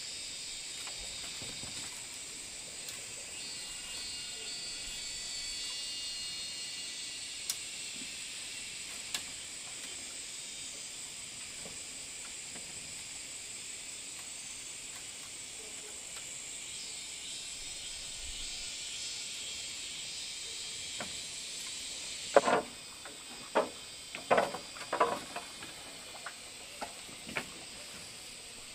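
A steady high-pitched insect chorus that cuts off suddenly about three quarters of the way through. Then comes a run of sharp knocks from bamboo poles being handled and clattering together.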